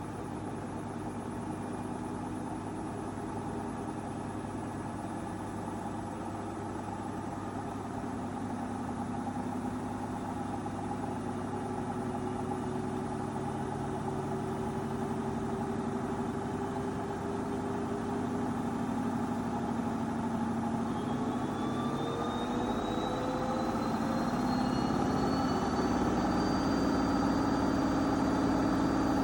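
AEG 8000-series washing machine running. From about twenty seconds in, a whine rises in pitch as the drum speeds up, then levels off into a steady high whine, and the machine gets gradually louder.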